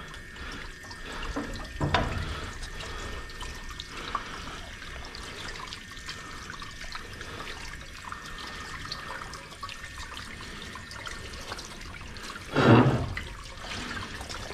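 Water spraying from a sink's hose nozzle and running over a lithographic limestone as the carborundum grit is rinsed off it after graining. A sharp knock comes about two seconds in, and a short, louder sound near the end.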